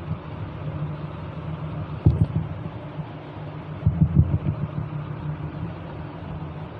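Low steady hum and rumble from a woofer speaker with a wireless microphone receiver plugged into it, broken by two louder low bumps about two and four seconds in.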